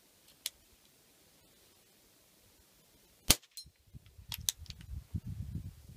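Crosman E9A .22 CO2 pistol fired once about three seconds in: a single sharp, loud crack. It is preceded by a faint click and followed by several sharp clicks and a low rumble.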